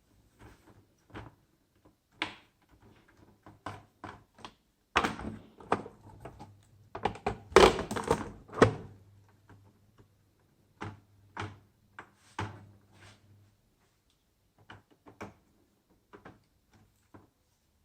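Irregular knocks, clicks and thunks of hands working on a laptop's case and parts. They are loudest and most crowded between about five and nine seconds in, with a low hum underneath from about five to thirteen seconds.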